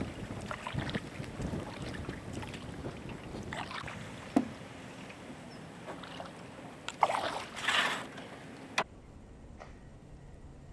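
Wooden paddle strokes dipping and splashing beside an aluminum canoe, with a sharp knock about four seconds in that rings briefly, and two louder rushes of water near the end. The sound then cuts off sharply, leaving a faint steady background.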